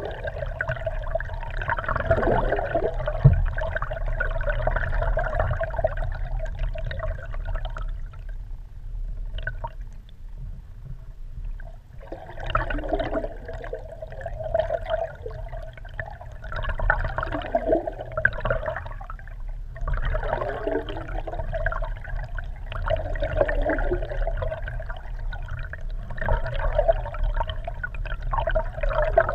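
Muffled water rushing and gurgling against a GoPro Hero3's waterproof housing, held underwater beneath a moving kayak. It comes in surges every two to three seconds over a steady low rumble, easing off for a few seconds about a third of the way in.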